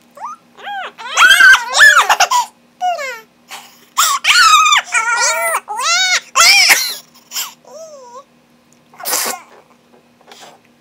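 A person making silly vocal noises: a string of high, squeaky squeals and whiny sounds that slide and waver in pitch, with a short breathy hiss about nine seconds in.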